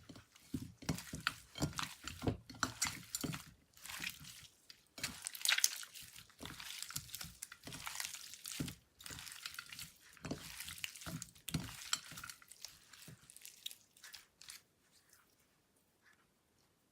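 Store-bought slime being mixed and squished: a dense run of wet, sticky clicks and crackles that thins out and stops about fourteen seconds in.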